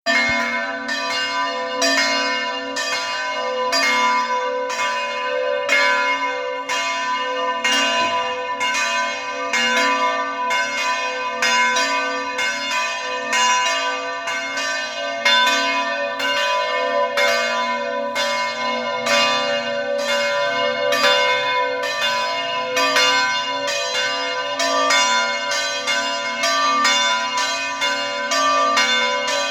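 Church bells pealing: a steady run of strokes about twice a second, their tones ringing on and overlapping.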